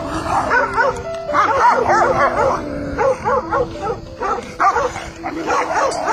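An agitated dog making a rapid run of short, high-pitched yips and whines, several a second, over background music.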